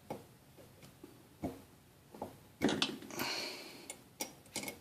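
Faucet parts being screwed down tight by hand: a series of small clicks and knocks, with one louder knock and a short scrape a little past the middle.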